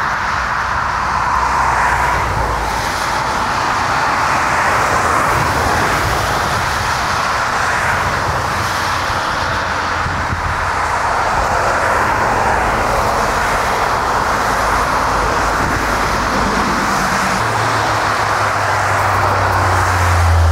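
Jet engines of a Boeing 787-9 touching down and rolling out along the runway: a steady rushing jet noise, with a low hum coming in near the end.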